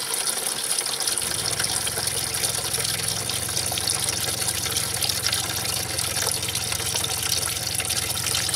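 Antifreeze pouring steadily out of a radiator's opened plastic drain petcock into a catch pan, running freely now that the coolant reservoir cap is loosened to let air in. A low steady hum comes in about a second in.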